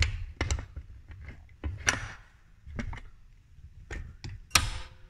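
Irregular knocks and clanks of tools and metal parts being handled against the awning's metal housing and mounting bracket, about seven in five seconds, some ringing briefly.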